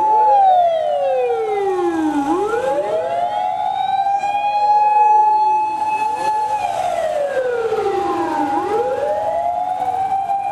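Several fire engine sirens wailing together as the trucks drive past. One holds a steady high pitch while others slide down and climb back up, in a slow cycle of about six seconds.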